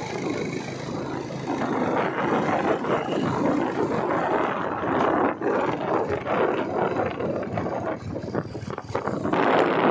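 Wind buffeting the microphone of a vehicle moving along a road, over the vehicle's running noise. The rushing swells and dips unevenly and dips briefly twice in the second half.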